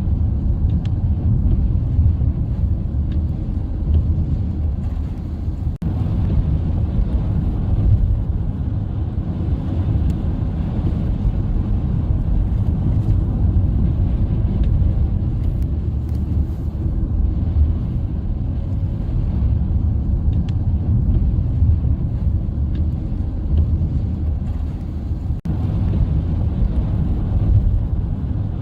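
Steady low rumble of a car on the move, cutting out very briefly twice.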